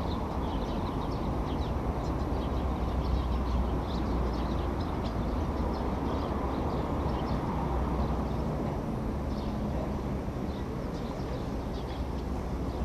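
A steady low rumble, with short high-pitched calls of swifts flying around, scattered all through.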